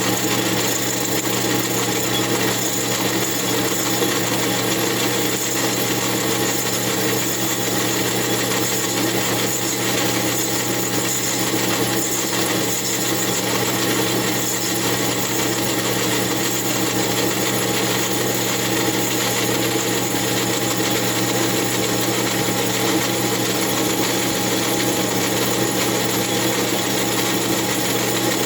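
Metal lathe running steadily while taking a cut on the base of an Echo CS-8000 chainsaw cylinder, a continuous machine hum with the tool cutting.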